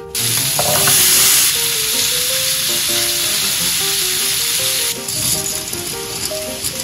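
Chunks of meat and whole garlic cloves sizzling loudly in a stainless-steel frying pan, stirred with wooden chopsticks; the sizzle starts abruptly and is loudest in the first second or so. About five seconds in it gives way to a softer hiss of boiling water as dry noodles go into the pot. Soft background music runs underneath.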